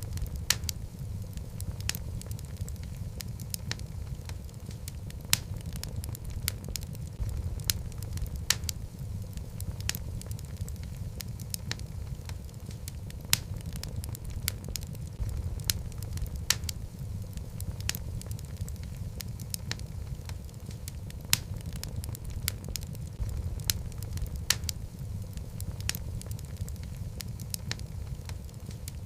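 Wood logs burning in a fireplace: a steady low rumble of the flames with frequent sharp, irregular crackles and pops.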